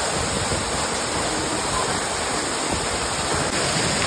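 Waterfall pouring into a shallow pool at close range: a steady, dense rush of falling and splashing water.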